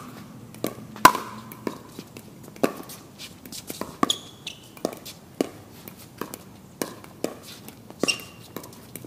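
Pickleball paddles hitting a hard plastic pickleball in a fast volley and dink rally: about a dozen sharp, hollow pocks, roughly one every half second to a second. The loudest hit comes about a second in.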